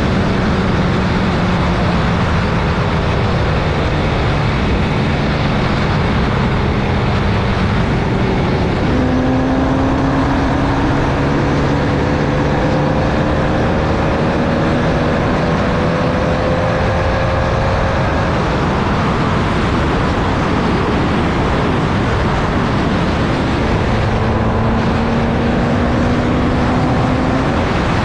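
Formula Vee's air-cooled 1200cc Volkswagen flat-four running hard at racing speed, heard onboard under a heavy, steady rush of wind and road noise. The engine note climbs slowly through long pulls in gear, once through the middle and again near the end.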